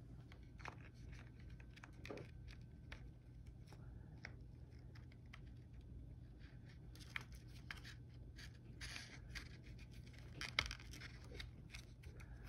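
Faint, scattered clicks and scrapes of small plastic parts being handled and fitted, as a gear is set back into a plastic RC car gearbox.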